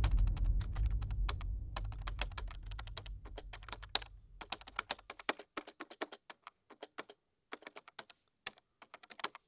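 Keyboard typing sound effect: rapid, uneven key clicks. Under the first half, the low tail of music fades out by about five seconds in.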